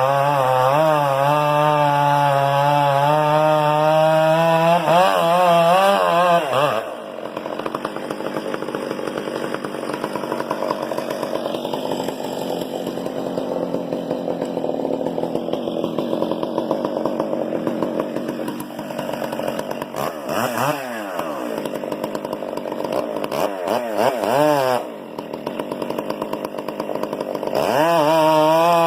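Chainsaw running hard and cutting wood. Its engine note wavers and dips as it works under load, drops lower for most of the stretch with a few short revs up and down, and returns to the high full-throttle note near the end.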